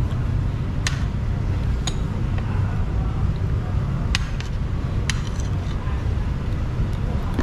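Metal cutlery clinking against a plate several times while eating, over a steady low rumble.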